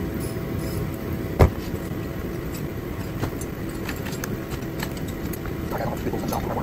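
Steady rushing hum of a shop heater, with one sharp click about a second and a half in and a few lighter clicks later as a socket and bolts are handled.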